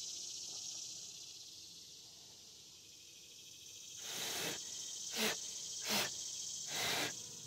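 Steady high-pitched chirring of crickets, with four short hissing bursts about four, five, six and seven seconds in.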